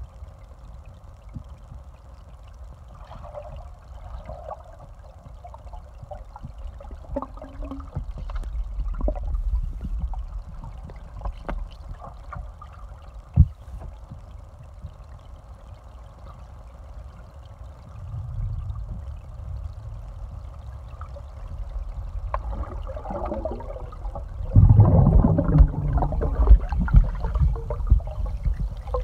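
Muffled underwater sound picked up by a submerged phone: a low rumble and sloshing of water with scattered clicks and knocks, growing louder and choppier for the last few seconds.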